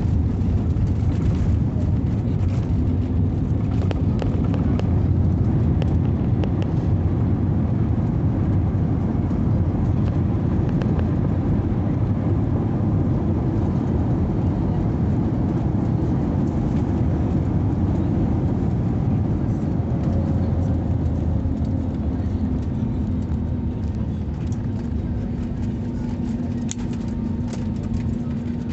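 Cabin noise of an Airbus A321neo with CFM LEAP-1A engines rolling out on the runway after touchdown: a steady low rumble from the wheels and engines that eases slightly as the aircraft slows, with a steady hum coming in over the last third.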